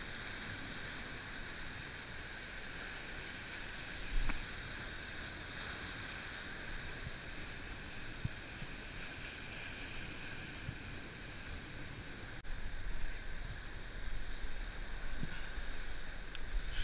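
Surf washing over a rocky lava shoreline, a steady wash of water noise that gets louder and more uneven during the last few seconds.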